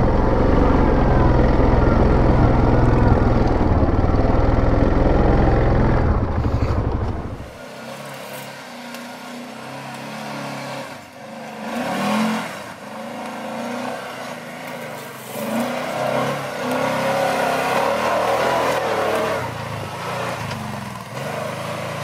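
Off-road vehicle engines working up a rough, steep trail section: a loud, deep engine rumble close by, which cuts off abruptly about seven and a half seconds in to a quieter engine revving in repeated rising and falling surges.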